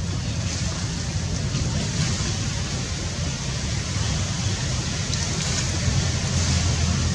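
Steady outdoor background noise: a constant low rumble under an even hiss, with no distinct event standing out.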